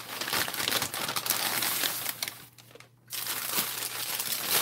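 Brown packing paper crinkling and rustling as an item is unwrapped by hand. The crackling stops briefly about halfway through, then starts again.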